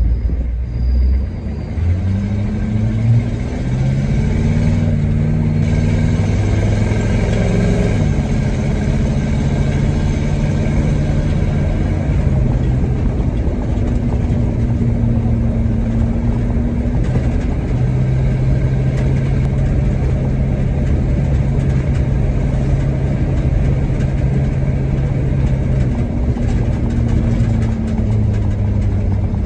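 Truck engine under way on the road. Its note climbs for several seconds, drops at a gear change about eight seconds in, then holds a steady cruise with a few smaller shifts in pitch later on.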